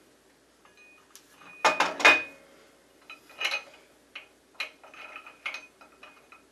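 Hard metal clanks as the Shopsmith universal tool rest is set down and fitted onto its mounting base: a couple of loud knocks about two seconds in, then scattered lighter clicks with a slight metallic ring while it is positioned.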